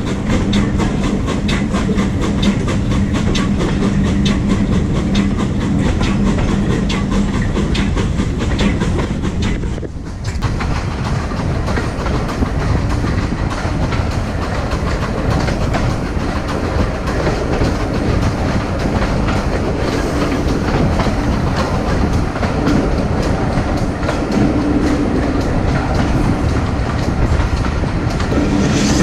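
A heritage train's passenger carriages running along the line, heard from an open carriage window: a steady rumble and rattle of wheels on rail with clickety-clack over the joints. A steady hum runs under it for about the first ten seconds, and the sound dips briefly about ten seconds in before carrying on.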